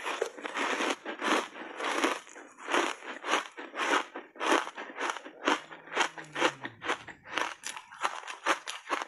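Crunchy reshaped foam ice being chewed close to a lapel microphone: a steady run of crisp crunches, about two a second.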